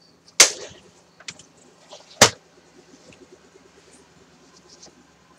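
Handling clatter as a plastic scoring board and cardstock are set out on a cutting mat: a knock with a short scrape about half a second in, a sharper knock about two seconds in, and light rustling of card between.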